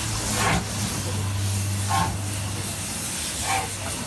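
Steam locomotive moving off slowly, its chimney exhaust chuffing about once every second and a half over a steady steam hiss and a low hum.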